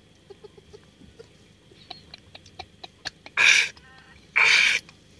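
A man's mouth and throat sounds after gulping a raw egg: small wet clicks and swallows, then two loud, short, breathy huffs about a second apart.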